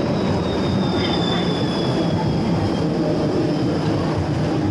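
City tram running past, a steady rumble with a thin high wheel squeal that slides slightly down in pitch over the first couple of seconds.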